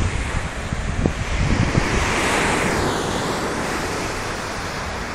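Small waves breaking on a shingle beach, one wash swelling to its loudest about two seconds in and then easing as it runs over the pebbles, with wind buffeting the microphone.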